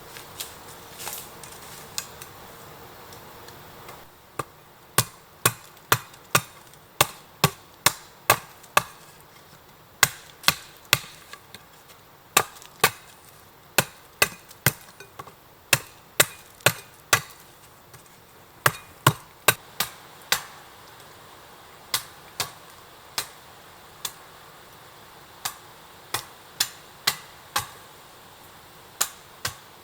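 Repeated sharp blows of a hand tool on wood, in runs of quick strikes about two to three a second with short pauses between runs.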